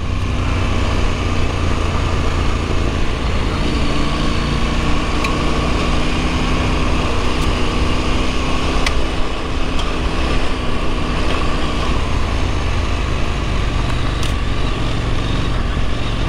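Husqvarna Norden 901's parallel-twin engine running at a steady speed along a gravel track, under heavy wind and tyre noise, with a few sharp ticks.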